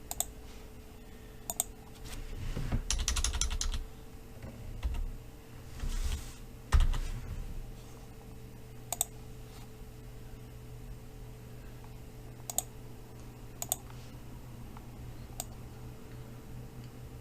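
Computer keyboard typing and clicking: scattered single clicks, with a quick run of keystrokes about two to four seconds in and a few louder knocks a little later, over a steady low electrical hum.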